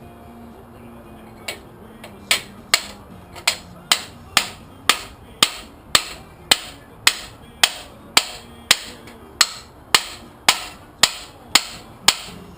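Hammer blows driving a stuck, cocked piston down through its cylinder bore in a Pontiac 455 V8 block. The strikes are steady and sharp, about two a second, starting about a second and a half in.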